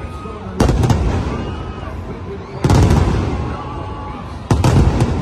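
Aerial firework shells bursting in three loud volleys about two seconds apart, each a quick cluster of bangs that dies away.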